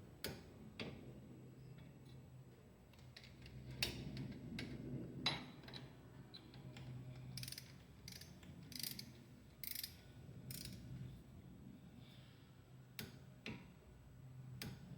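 Faint, irregular clicks and ratcheting from a torque wrench on the brake caliper bolts as their tightness is rechecked to the set torque.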